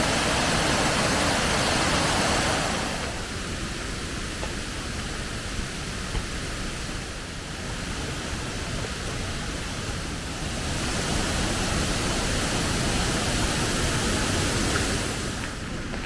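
Waterfall water rushing in a steady roar. It gets abruptly quieter about three seconds in, louder again past the middle, and drops near the end.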